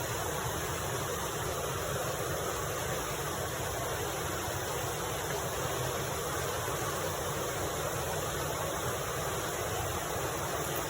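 Steady rushing of flowing river water, an even noise without pitch or breaks.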